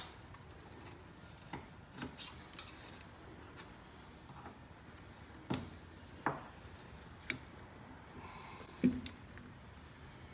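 Scattered small clicks and taps of metal parts being handled at the top of a BMW R 1200 GS front shock absorber as its retaining clip and collar are worked free, with a few louder taps in the second half.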